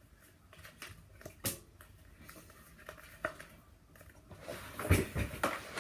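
Glossy playing cards being thumbed through and spread in the hands, with scattered soft clicks and snaps of card edges sliding past each other. About five seconds in there is a louder knock and rustle around the moment a card drops.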